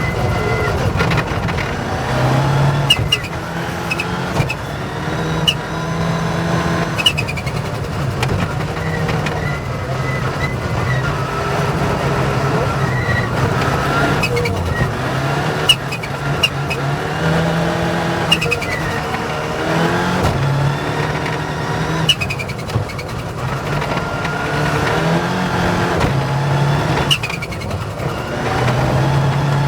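Rally car engine driven hard on a stage, revs repeatedly climbing and dropping back as it shifts through the gears, with scattered sharp clicks and knocks.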